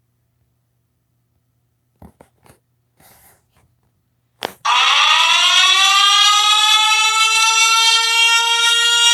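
A few faint clicks, then about four and a half seconds in a loud siren starts: its pitch winds up and settles into a steady wail.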